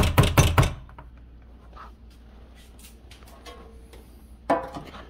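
Kitchen utensil clatter: a quick run of sharp knocks of a spatula against the mixing bowl of thick banana bread batter at the start, then a quiet stretch and another clatter near the end.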